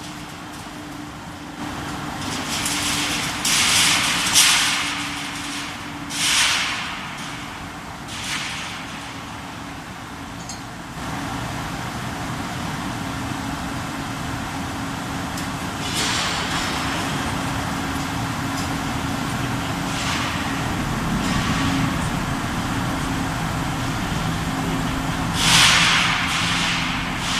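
Glass bending furnace machinery running with a steady hum, broken by several short hissing bursts, like compressed air venting. The bursts come a few seconds in, twice more soon after, again near the middle and once near the end.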